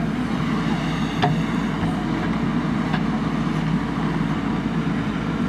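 Backhoe loader's diesel engine running steadily, with two sharp knocks, one about a second in and another about two seconds later.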